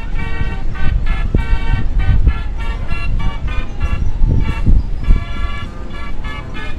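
Birds calling in a rapid series of short, horn-like honking notes over a steady low rumble.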